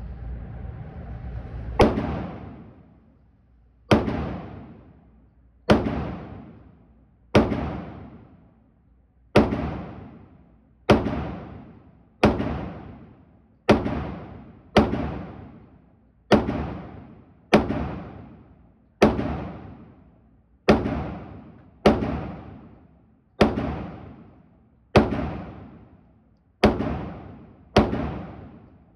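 Glock 27 .40 S&W pistol, fed from a KCI drum magazine, fired in slow single shots: about eighteen shots, one every second and a half or so, each with a long echoing tail.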